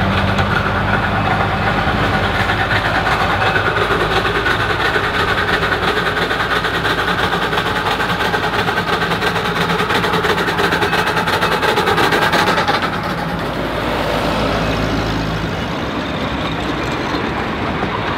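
A 15-inch gauge live-steam train, doubleheaded by a 4-4-0 steam locomotive and a diesel locomotive, approaches and runs past close by. The locomotives' running sound with a steady low engine hum goes by about thirteen seconds in, then the riding cars roll past on the rails.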